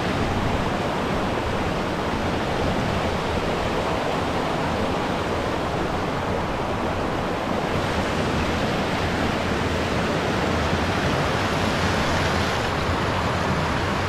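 Rushing water of a small mountain stream tumbling over rocks in a cascade, a steady even rush.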